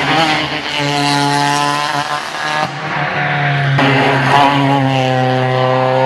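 Rally car engines running at high revs on a stage, the note held steady for long stretches with a few short breaks and changes in pitch as the cars shift and lift off.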